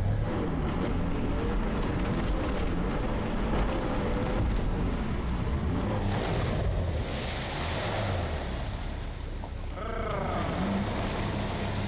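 Sherp amphibious all-terrain vehicle's engine running, its pitch wavering as it drives through tall grass. About six seconds in, the vehicle enters the river, and water rushes and splashes around its big low-pressure tyres. Wind buffets the microphone.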